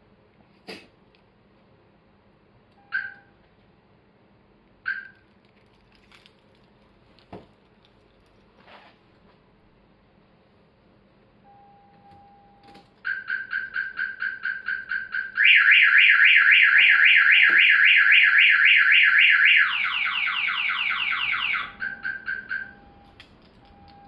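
Viper 3400V car alarm: two short siren chirps a few seconds in, then about halfway through the full alarm siren goes off. It steps through a rapid pulsing tone, a loud steady warble, a series of falling sweeps and pulses again, then stops shortly before the end. A few light clicks come before it, and a fainter lower beep repeats behind the siren.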